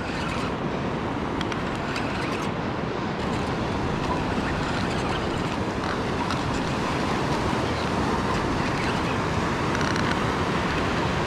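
Steady rushing noise of surf and wind.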